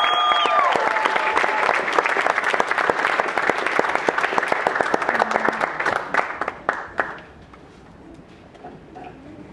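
Audience applauding a dance performance, the clapping dying away about seven seconds in.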